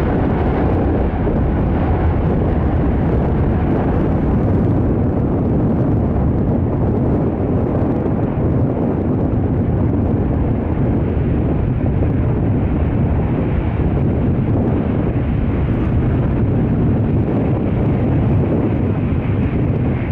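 Steady roar of jet airliner engines: a loud, even rumbling noise that neither rises nor fades.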